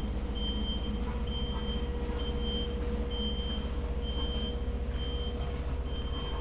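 Road roller compactor's engine running with a steady low drone while its reversing alarm beeps about once a second, a high single-tone beep that marks the machine backing up.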